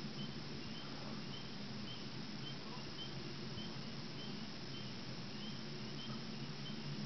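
Unexplained low rumbling drone, steady and non-stop, likened to a vent from a plant or something blowing out of a pipe. Faint short high chirps repeat over it about twice a second.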